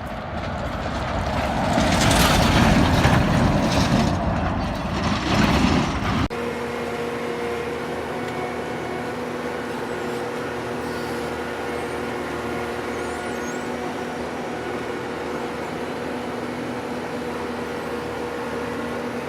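Vehicle road noise on a broken road surface: a loud rush that swells and fades over the first six seconds, then cuts off suddenly to a steady engine and tyre drone with a low hum.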